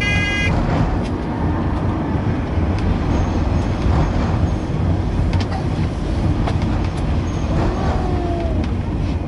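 Blackpool Western Train heritage tram 733 running along the promenade track, heard from inside its rear saloon car: a steady low rumble with scattered clicks and knocks. A short, high ringing tone sounds right at the start.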